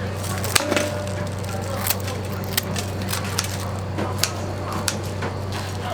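A steady low machine hum with scattered sharp clicks and taps, a dozen or so at uneven intervals, the sharpest a little over half a second in.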